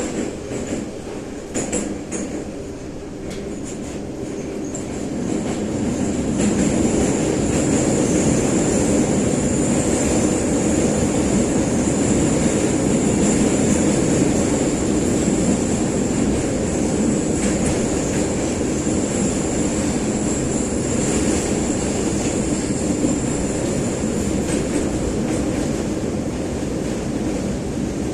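St Petersburg-built 81-717/714 'numbered' metro train running: steady wheel-on-rail rumble with a thin high whine above it, growing louder about five seconds in and then holding.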